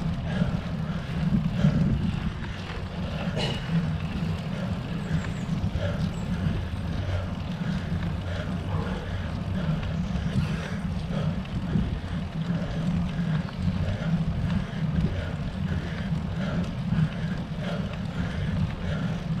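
Steady low rumble of a road bike riding slowly uphill on tarmac, with tyre and road noise carried through to a bike-mounted camera.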